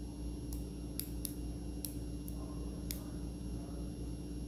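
Unidirectional dive bezel of an Omega Seamaster Diver 300M turned counterclockwise by hand, clicking as it ratchets: about six short, crisp clicks, unevenly spaced over the first three seconds.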